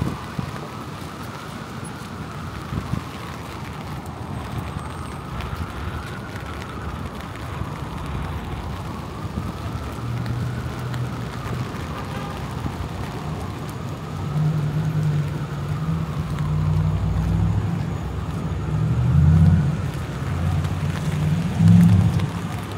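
City street traffic: a steady wash of vehicle noise, with motor vehicle engines rumbling close by, louder from about ten seconds in and peaking twice near the end. A faint tone rises and falls slowly behind it.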